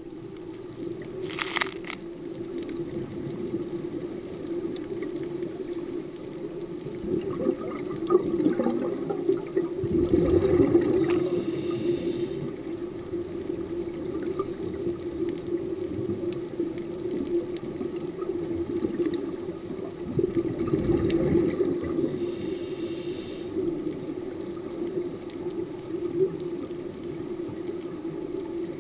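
Scuba divers' regulator breathing heard underwater: the rumble of exhaled bubbles and the hiss of the regulator over a steady low hum. The breathing is strongest about ten seconds in and again around twenty seconds in.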